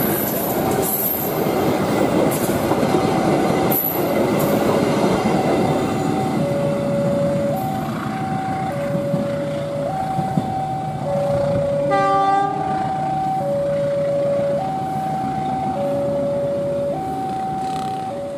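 Level-crossing warning alarm sounding a steady two-tone ding-dong, high and low notes alternating about once a second, over the rumble and wheel clatter of a passing passenger train. Thin wheel squeal comes in the first few seconds, and a short horn blast sounds about two-thirds of the way through.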